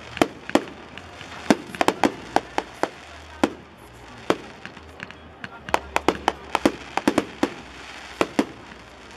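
Aerial fireworks bursting: an irregular string of sharp bangs, some coming several to a second in quick clusters, others spaced a second or so apart.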